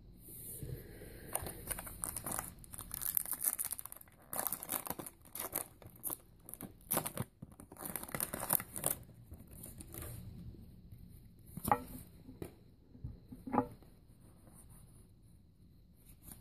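Foil wrapper of a Pokémon trading card booster pack being torn open and crinkled: irregular crackling for the first nine seconds or so, then a few single soft clicks.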